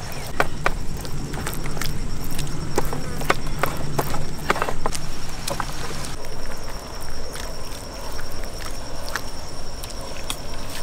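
Hands smearing and patting thick, wet chili masala paste onto a rack of raw ribs and scooping more from a bowl: irregular wet clicks and pats, with a steady high whine behind.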